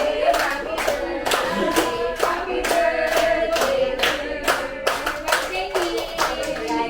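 Several voices singing together over steady rhythmic hand clapping.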